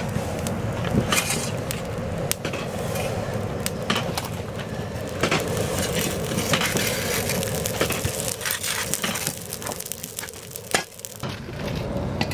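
Steel tapping bar poking and scraping in the tap hole of a clay bloomery furnace while slag is being tapped, giving scattered sharp clicks and crunches. Under it runs the steady rushing noise of the furnace fire.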